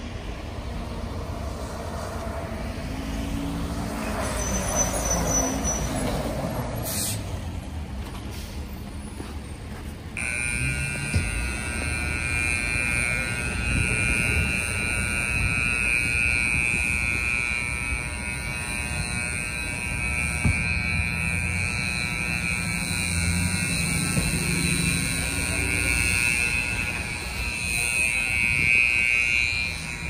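Street traffic with a heavy vehicle's engine running. About a third of the way in, a steady high-pitched whine starts and holds.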